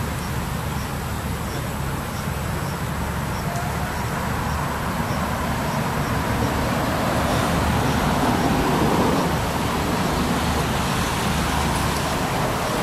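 Steady rumble of road traffic, swelling as a vehicle passes about eight seconds in. A faint high chirp repeats about three times a second in the first few seconds.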